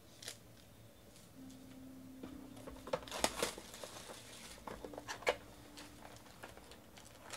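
Cellophane shrink wrap crinkling and tearing as it is stripped off a trading-card hobby box, in faint scattered rustles, with the busiest bursts a little past three seconds in and again around five seconds.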